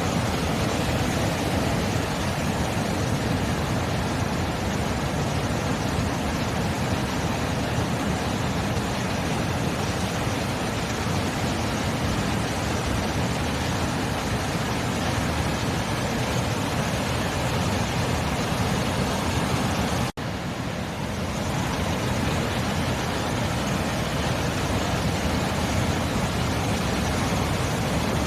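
Ocean surf: a steady, unbroken wash of waves. It drops out for an instant about twenty seconds in, then comes back.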